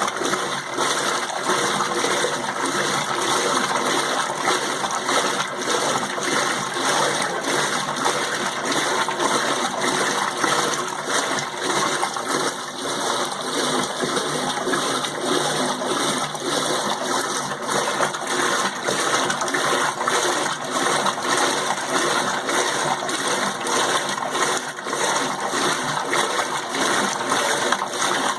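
Steady rushing and splashing of water inside an Electrolux Turbo Limpeza 8 kg washing machine rinsing a load of rugs at the extra-low water level.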